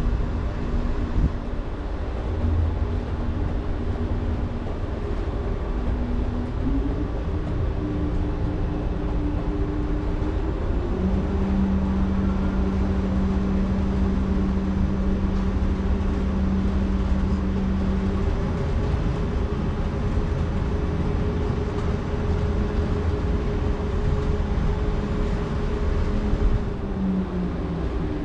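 Electric hybrid car ferry's propulsion machinery running as the ferry manoeuvres in to the quay: a steady low rumble with humming tones that shift pitch. The hum steps up about seven seconds in, and a strong low hum runs for several seconds. Near the end the hum falls away.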